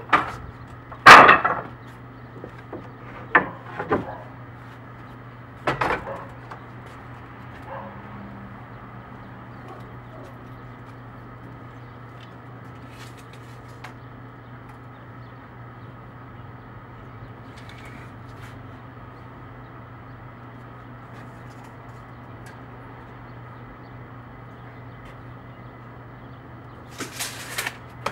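Wooden boards knocking as lumber is handled at a miter saw: one loud sharp clack about a second in, then several lighter knocks over the next few seconds. After that only a low steady hum, with a short burst of hissing noise near the end.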